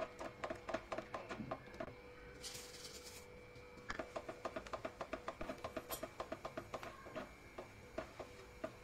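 Silicone spatula stirring thick, simmering reduced milk in a nonstick frying pan: quick rhythmic scraping clicks, about five a second. They stop for a couple of seconds, with a brief hiss about two and a half seconds in, then start again.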